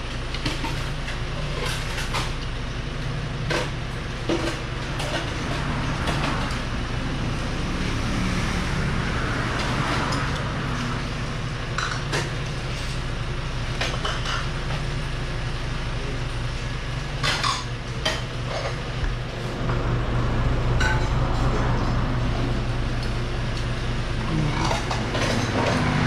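Spoons and forks clinking against plates and bowls during a meal, in scattered clicks over a steady low background hum.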